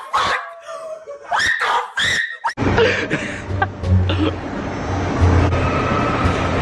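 Young people laughing and snickering in short bursts. About two and a half seconds in it cuts to the steady low hum of a busy mall, with faint voices in the background.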